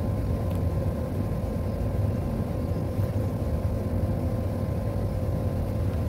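A steady low machine hum with a faint constant whine above it, unchanging throughout.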